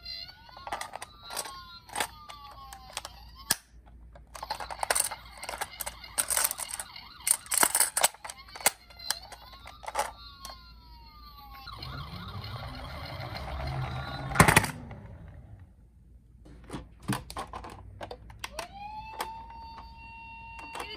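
Electronic sirens of toy ambulance minicars wailing, the tone rising and falling, with sharp plastic clicks and knocks from the toy cars. Partway through, a rumbling, rattling noise builds for a few seconds and ends in one loud knock, and near the end another siren starts up.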